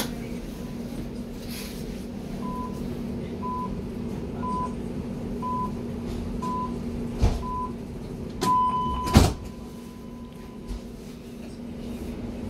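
Door-closing warning of a Hamburg U-Bahn DT5 train: six short beeps about a second apart, then a longer beep as the sliding doors shut with a sharp knock. The train's steady hum runs underneath.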